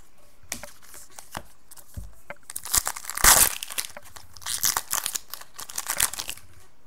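Foil trading-card pack torn open and its wrapper crinkled, with the loudest tear a little over three seconds in and more crinkling in the second half.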